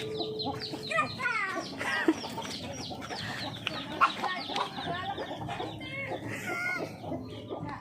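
A flock of village chickens clucking continuously, mixed with chicks peeping in many short falling chirps.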